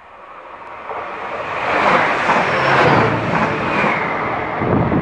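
Passenger train passing the platform without stopping: the rush of wheels on rail and air builds steadily, peaks about two seconds in, and stays loud as the train goes by.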